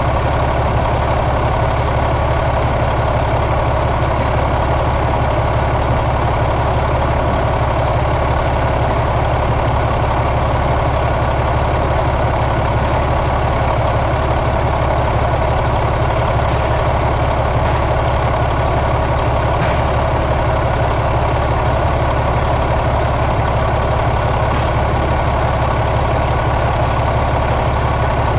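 Caterpillar C13 inline-six diesel engine, a 2005 unit, idling steadily with no change in speed.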